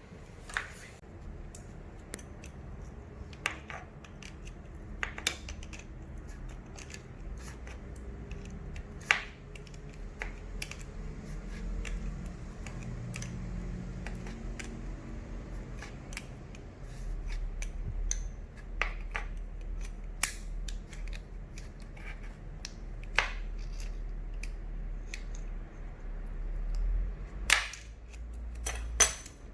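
Scattered sharp clicks and light knocks from handling small metal hardware and hand tools while fitting a door-stopper wall anchor, over a low hum, with two louder clicks near the end.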